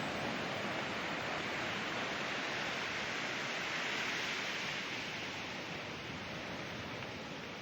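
Ocean surf washing onto a beach: a steady hiss of breaking water that swells about halfway through as a wave comes in, then ebbs toward the end.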